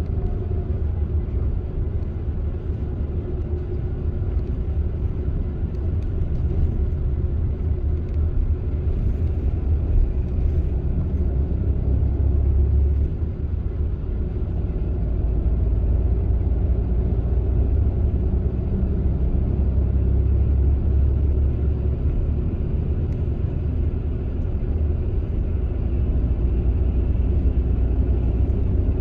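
Coach bus driving on the highway, heard from inside the cabin: a steady low rumble of engine and tyres on the road that swells and eases slightly now and then.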